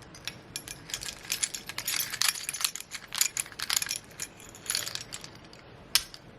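Car keys and metal keychains jingling and clinking as keychains are worked off the key ring: irregular clusters of small metallic clicks, with one sharp click about six seconds in.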